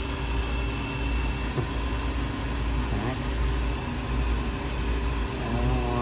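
Steady mechanical hum of a Norlake freezer's condensing unit running, compressor and condenser fan, with faint constant tones over a low drone.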